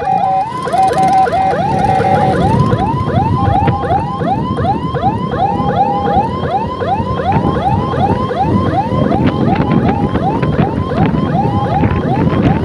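Electronic siren on an escort scooter, worked from a handlebar control box, sounding a fast yelp of quick rising sweeps, about three a second, broken now and then by short blasts of a steady horn tone. Scooter engine and road noise run underneath.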